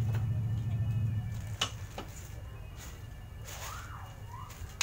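A few sharp clicks and knocks as a metal adjustable home gym bench is handled and adjusted, the sharpest near the end. A low steady hum fades out about a second in.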